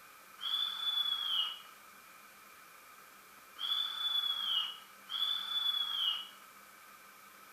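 Sound decoder of an MTB-Model ST43 model diesel locomotive sounding its high, whistle-like warning signal: one blast, then a pause, then two blasts close together, each about a second long and dropping in pitch as it cuts off.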